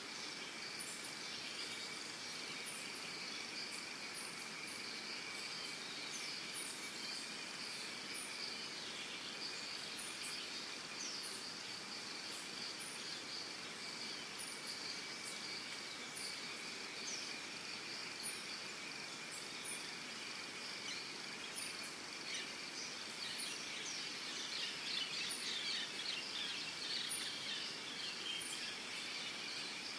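Evening insect chorus: a steady high-pitched buzzing drone with a short, very high chirp every second or two. A bird twitters briefly about three-quarters of the way through.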